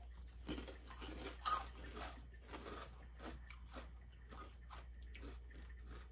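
Crunching and chewing of Dinamita Flamin' Hot rolled corn tortilla chips close to the microphone: quick sharp crunches in the first couple of seconds, then slower, softer chewing.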